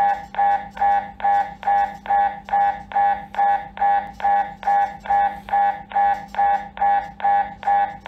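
MRI scanner's gradient coils running an imaging sequence: a loud, buzzy beeping tone pulsing evenly a little more than twice a second, over a steady low hum.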